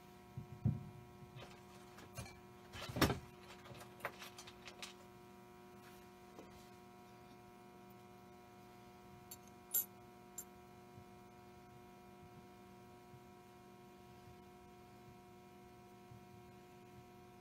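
A few light metal clicks and knocks from a vintage Lionel toy-train motor's wheels and axles being handled and seated in an arbor press. The loudest comes about three seconds in and another near ten seconds, over a steady electrical hum.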